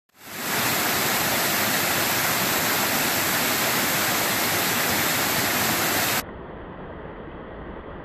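Small waterfall cascading over rock ledges into a pool: a loud, steady rush of falling and splashing water that swells in over the first half second. About six seconds in it drops suddenly to a quieter, duller rush.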